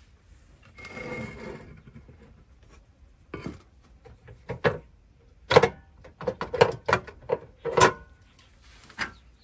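A rustle about a second in, then a run of irregular knocks and clicks, like small hard objects being handled and set down.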